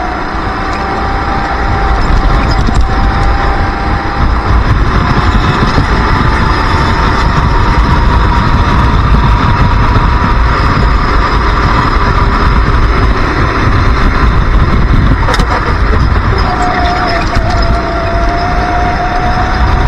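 Racing kart engine heard from onboard, held at high revs with its note rising steadily as the kart gathers speed, then dropping at about 16 seconds in as the throttle comes off and climbing again. A heavy low rumble of wind on the microphone runs underneath.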